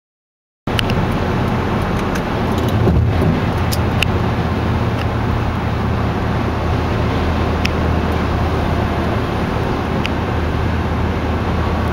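Lawn tractor engine running steadily, starting abruptly about a second in, with a few light clicks over it.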